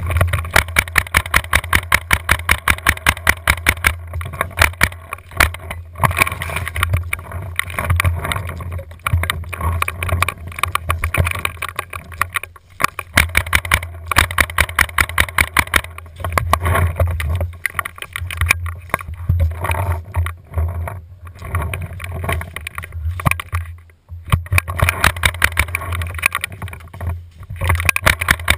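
Tippmann A-5 paintball marker firing in rapid volleys of several shots a second, burst after burst with short pauses between.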